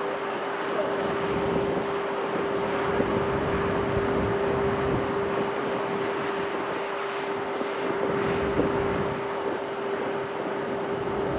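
A steady machine-like hum holding one constant mid-pitched tone, over an even rushing noise.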